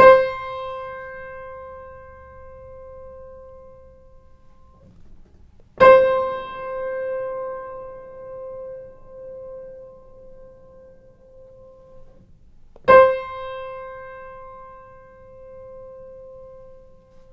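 Acoustic piano playing the same single note three times, several seconds apart, each left to ring out. The first is played without the sustain pedal. The second is played with the damper pedal already down, giving a fuller, echoey ring. The third has the pedal pressed just after the note, so the attack is less harsh and the sustain is longer and more even.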